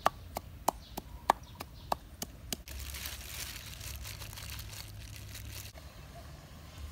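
Wooden pestle pounding in a clay mortar, about three sharp knocks a second, each with a short ring. About two and a half seconds in, this gives way to a steady rustling and crinkling of plastic-gloved hands mixing food in a bowl.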